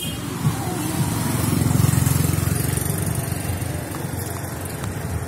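An engine running, its low rumble growing louder about two seconds in and then easing off.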